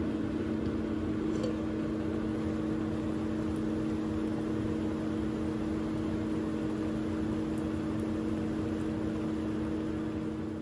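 Induction cooktop heating a pot: a steady electrical hum with a few pitched tones over the constant whir of its cooling fan.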